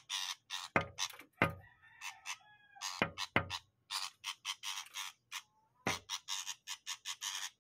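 Shrike giving harsh, rasping chatter calls in quick runs, several a second, with a few dull knocks mixed in.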